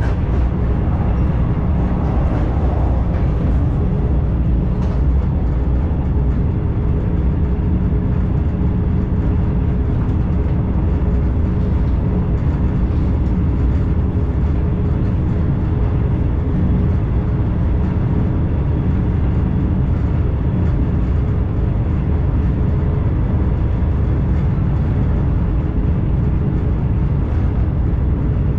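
Commuter train running along the track, heard from inside the carriage: a steady low rumble of wheels and running gear with a faint steady hum over it.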